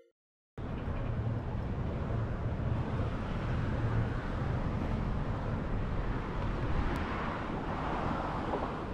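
Outdoor roadside ambience: a steady low rumble of road traffic with a noisy hiss, starting abruptly after a brief silence.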